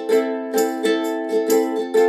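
Background music: a light tune of strummed plucked strings in a steady rhythm.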